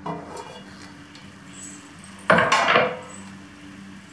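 Stainless steel kitchenware clattering as a heavy vessel and the steel plate lid are lifted off a pressure cooker: a light clink at the start, then a louder metal clatter about two and a half seconds in, lasting under a second.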